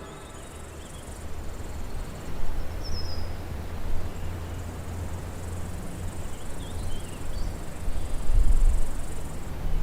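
Outdoor ambience with insects buzzing steadily and a few short bird chirps, over a low rumble that swells near the end.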